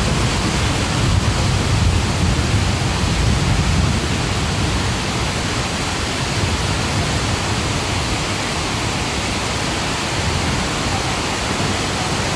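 Heavy rain pouring down onto a street in a dense, steady hiss, with a heavier low rumble for the first few seconds.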